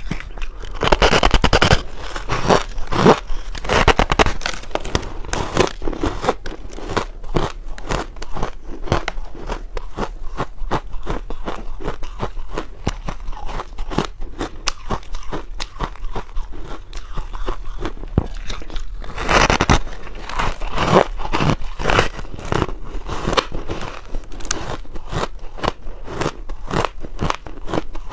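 Biting and chewing a frozen pink ice cake, with crunching and crackling throughout. The crunching is loudest just after the start and again about two-thirds of the way through.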